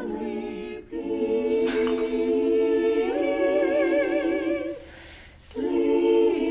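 A small group of women singing a cappella in close harmony, holding long chords with vibrato. The singing breaks off briefly twice, just under a second in and again about five seconds in.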